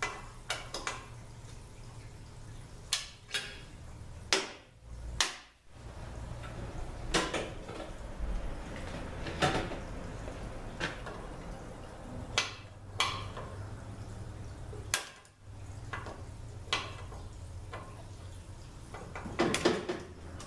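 Irregular metal clinks and clunks of the boring jig and guide pieces being taken out of a 5R55S transmission case's servo bore and set down on a metal workbench, about a dozen separate knocks, over a steady low shop hum.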